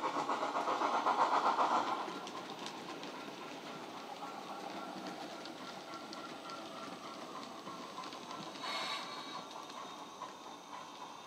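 DCC sound of an LNER Q6 0-8-0 steam freight locomotive, played through a Hornby OO model's on-board speaker: rhythmic exhaust chuffs at about four a second. They are loudest for the first two seconds, then quieter and steadier, with a short hiss about nine seconds in.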